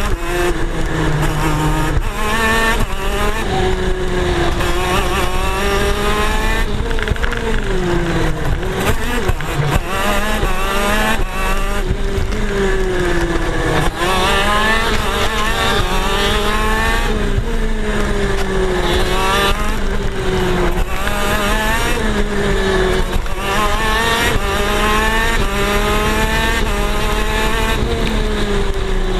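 125cc two-stroke KZ shifter kart engine at racing speed, heard on board. The revs climb again and again, breaking off and restarting with each rise, and drop back at intervals as the kart slows for corners.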